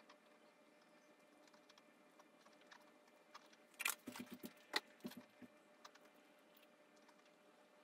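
Near silence broken about four seconds in by a short run of small crunching clicks: a Pomeranian chewing a treat.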